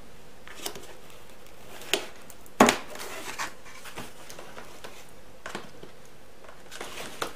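White cardboard box handled and worked open by hand: scattered taps and knocks of cardboard, the loudest about two and a half seconds in.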